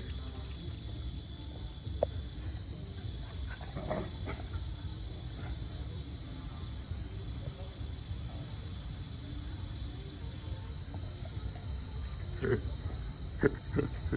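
Insects chirping in a steady high chorus, one of them pulsing at about four chirps a second that starts a few seconds in and pauses briefly near the end, over a low steady rumble. A few soft knocks near the end.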